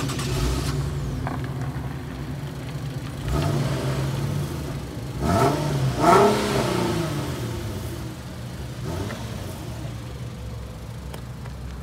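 Infiniti Q50's stock exhaust, idling and revved several times in short blips. The biggest rev comes about six seconds in, and the engine then falls back to a steady idle.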